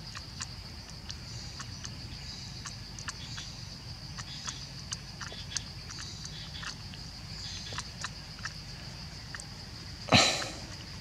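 Steady high-pitched insect drone with scattered soft clicks as a baby monkey sucks milk from a bottle nipple, and a sudden loud thump about ten seconds in.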